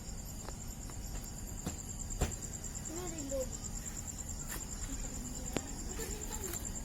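Night insects chirping steadily in a rapid, high-pitched pulsing trill, with a few faint clicks.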